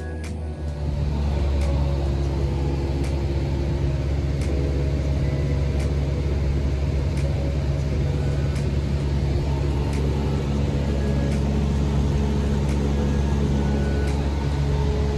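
Steady low drone of a light aircraft's engine and propeller heard from inside the cabin in flight, coming up loud about a second in.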